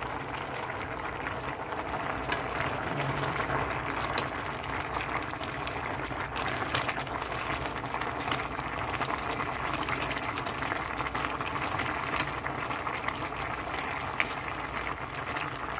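Vegetable broth boiling in a stainless steel pot, a steady bubbling hiss, with a few light clicks as a spoon pushes squash blossoms down into the broth and touches the pot.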